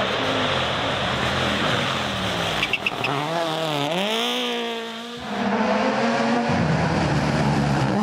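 Turbocharged four-cylinder rally car engines at full attack on a tarmac stage. The pitch falls and climbs with gear changes, with a few sharp pops near three seconds and a steep rise in revs around four seconds. A second car's engine follows, holding a steady high note.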